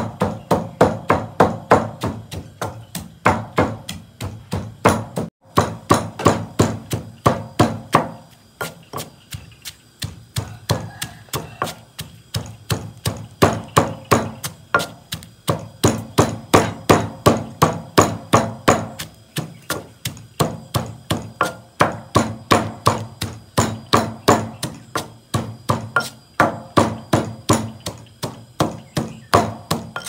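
Wooden pestle pounding chili peppers, garlic and salt in a mortar, grinding them into a sauce paste: repeated thuds at about three a second, with a few short breaks.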